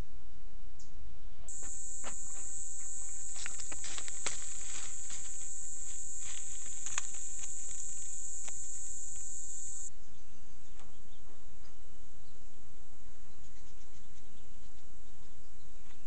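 A high, steady insect buzz starts about a second and a half in and cuts off suddenly near the ten-second mark, with scattered light clicks during it. A low background rumble runs throughout.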